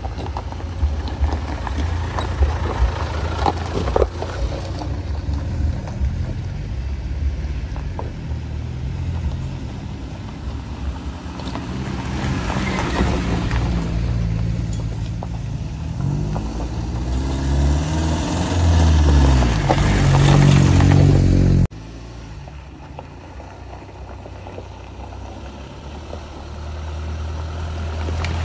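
4x4 SUV engines driving along a gravel track. The engine grows louder, with its pitch swinging up and down as a vehicle comes close, then cuts off suddenly about three-quarters of the way through. Another engine builds again near the end.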